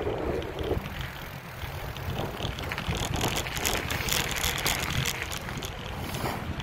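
Wind rushing over the microphone while riding along wet asphalt, with a steady low rumble and tyre hiss off the wet surface that grows louder for a couple of seconds midway.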